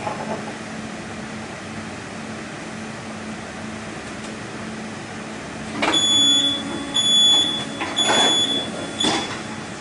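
Automated greenhouse table-transport machine with a steady low hum. About six seconds in, a high-pitched warning beeper sounds three times about a second apart, with knocks among the beeps.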